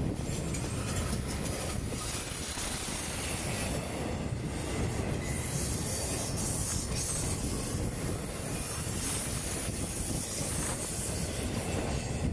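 Intermodal freight train's cars rolling steadily past, wheels rumbling and clacking over the rail joints, with a thin high wheel squeal in the middle.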